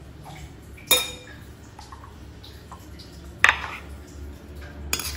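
A steel serving ladle clinking sharply against dishes three times, each clink ringing briefly, over a steady low hum.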